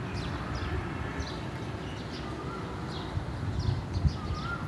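Small birds chirping repeatedly in short, quick calls over a steady low rumble, with a single thump about four seconds in.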